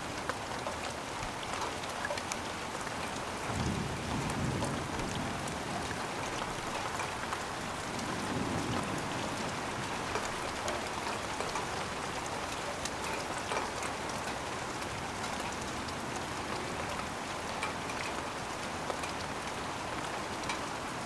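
Steady rain falling and pattering on surfaces, with scattered sharper drop ticks. A low rumble swells briefly about four seconds in and again about eight seconds in.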